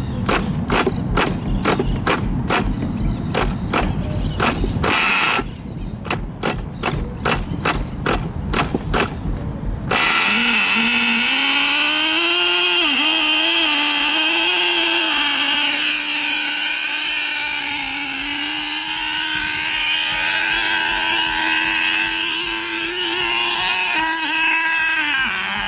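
Small glow-plug nitro engine of an RC boat being cranked with a rapid run of clicks, the clicks coming faster about halfway through. About ten seconds in it catches and runs with a steady high-pitched buzz, revving up and down briefly before settling, and its pitch dips near the end.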